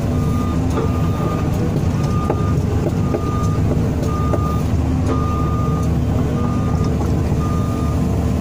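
JCB JS205 excavator's diesel engine running steadily at low throttle, heard from inside the cab, during its first run after being sunk in peat. Over it, a warning alarm beeps about once a second.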